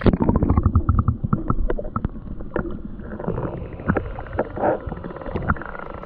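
Muffled underwater sound from a camera plunged into lake water. A loud splash and bubbling as it goes under, then dull sloshing and rumbling with many small clicks and pops while a small bass is held under the surface and released.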